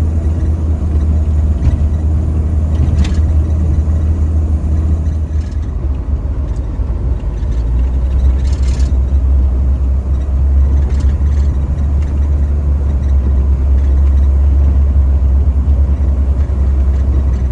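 Motor vehicle running with a steady, loud low rumble, with a few short knocks along the way.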